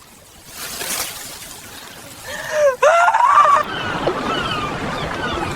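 A short pitched cry that bends up and down about two and a half seconds in, then a steady wash of sea surf.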